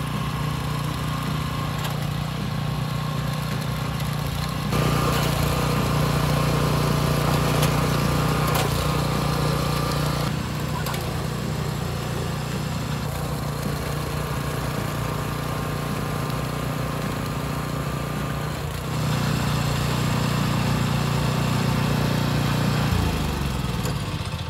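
Walk-behind petrol chain trencher's small engine running steadily as its digging chain cuts a trench through lawn soil; the engine note drops near the end.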